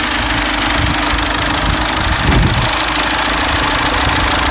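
Skoda Superb's 2.0-litre common-rail diesel (CFFB) idling steadily just after being started, with a brief low surge about halfway through.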